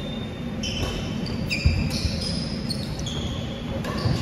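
Sports shoes squeaking again and again on a wooden court floor as badminton players move in a rally, with one sharp thud a little before halfway through.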